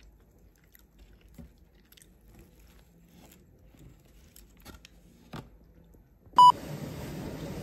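Faint eating sounds: a fork pressing into a soft slice of cake and quiet chewing, with small scattered clicks. About six seconds in, a short loud beep, followed by a steady hum of room noise.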